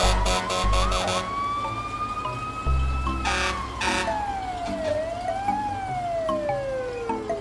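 Cartoon fire engine siren: one slow wail that rises, then falls, climbs briefly and falls away lower.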